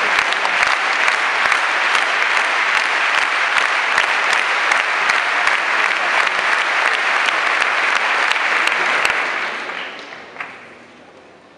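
Large tennis stadium crowd applauding a point, dense steady clapping that dies away over the last two seconds or so.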